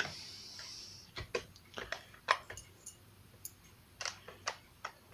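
Irregular light clicks and taps of small metal drill bits being handled and sorted, after a brief soft hiss in the first second.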